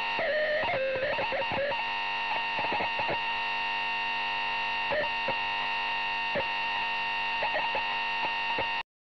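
Distorted, noisy drone music: a dense wall of held tones with scattered crackles and glitches, cutting off abruptly near the end.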